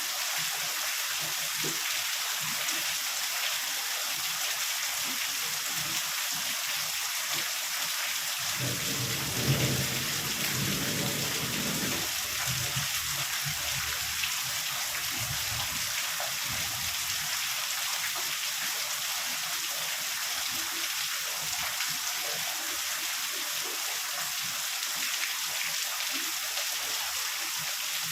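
Heavy rain falling steadily, with a low rumble of thunder about a third of the way in that lasts a few seconds and fades.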